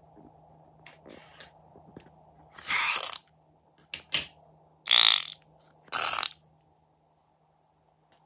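Slime being squeezed out of a rubber balloon into a stainless steel bowl: three loud squelching bursts about a second apart, with two sharp clicks between the first and second.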